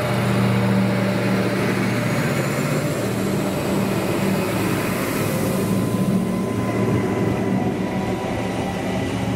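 Adelaide 3000 class diesel railcar pulling along the platform and away: a steady low diesel engine drone with wheel-on-rail rumble and a faint whine that shifts in pitch. The sound eases only slightly after the last car has passed.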